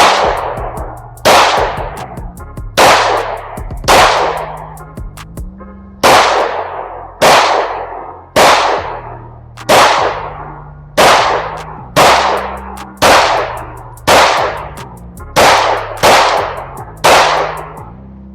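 A Glock 19C Gen 4 9mm pistol with a factory-ported, compensated barrel fired as a string of about fifteen shots, roughly one a second with a short pause near the middle, each crack ringing off.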